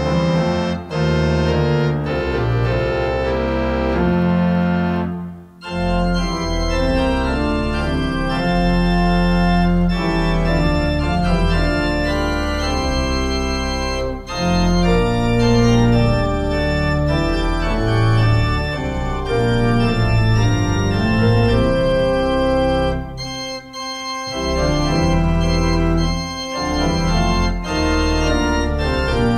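Organ playing slow, held chords, the music pausing briefly about five and a half seconds in and again around twenty-four seconds.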